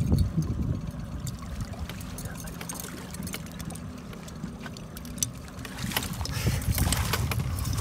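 A large muskie thrashing in a landing net at the side of a boat, water splashing and slopping against the hull, heaviest from about six seconds in. Under it the boat's outboard motor idles with a steady low hum.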